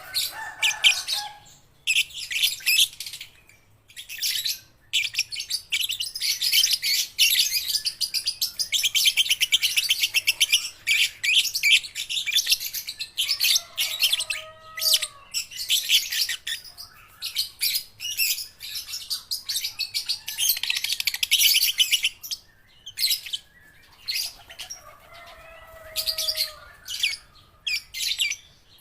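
Young lovebirds chattering in rapid high-pitched chirps and trills, in bursts with short breaks, and a couple of lower calls about halfway through and near the end. It is a juvenile lovebird still learning its song.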